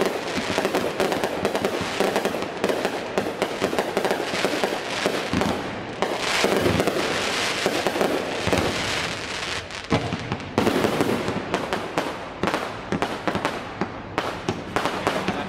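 Fireworks display: a rapid, continuous barrage of aerial shell bursts with crackling between the bangs.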